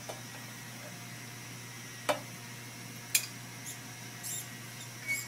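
A few sharp clicks and knocks, the two loudest about two and three seconds in, with a brief scrape, as a metal sieve pan is handled and set on a laboratory sieve shaker. A steady low hum runs underneath.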